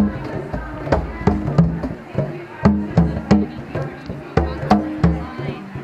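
A child striking a pair of tall African hand drums with his hands: an uneven run of strokes, roughly two or three a second, some deep and ringing, others sharp slaps.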